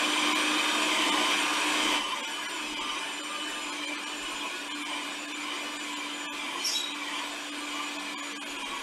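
Electric stand mixer with twin beaters running at a steady speed, its motor humming and whirring as the beaters work a stiff flour-and-egg spaetzle dough in a stainless steel bowl. The sound drops a little in loudness about two seconds in.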